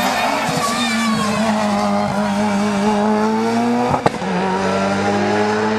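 Racing touring car's engine at high revs accelerating up a hill-climb course, its pitch rising steadily. About four seconds in there is a brief break and drop at a gear change, and then it climbs again.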